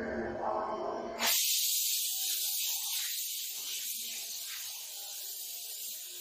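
Compressed-air spray gun hissing steadily as it sprays paint onto a wall; the hiss starts abruptly about a second in, when the trigger is pulled.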